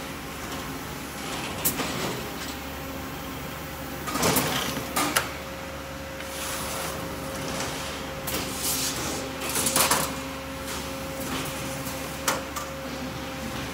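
Automatic factory machine running with a steady hum. Several short bursts of mechanical noise come about four seconds in and again around eight to ten seconds, with a few sharp clicks in between.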